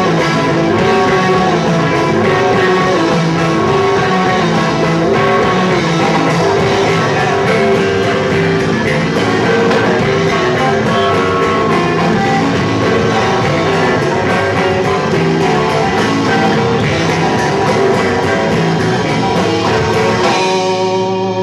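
An instrumental rock trio of electric guitar, bass guitar and drum kit playing loudly, recorded live. Near the end the sound thins as the high hiss and the deepest low end fall away, while guitar and bass carry on.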